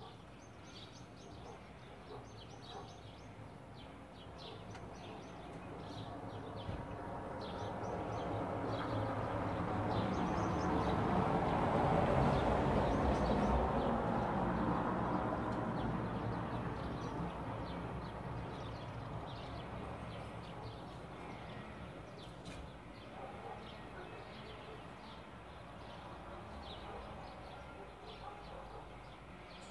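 Small birds chirping throughout, while the noise of a passing vehicle slowly swells, peaks around the middle and fades away.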